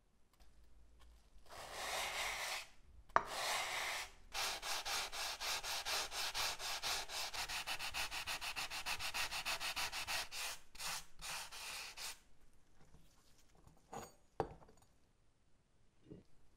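Superfine sanding sponge rubbed over a textured steel hatchet head, taking the black finish off the raised pattern: two slower strokes, then quick back-and-forth scrubbing at about five strokes a second for some eight seconds. Two light knocks near the end.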